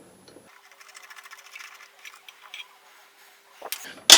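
Light, quick metallic ticking and clicking from hand work on a motorcycle's rear brake caliper and pads, ending in one sharp metal clack near the end.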